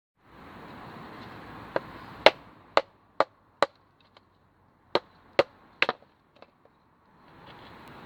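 Wood being chopped: about nine sharp strikes in two quick runs, as fatwood logs are split for a campfire.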